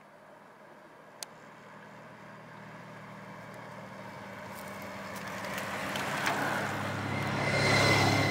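Motor vehicle engine approaching and passing, a steady hum growing louder throughout and loudest near the end, with tyre rush on the road.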